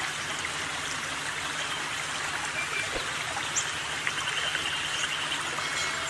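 Steady sound of running water, like a flowing stream.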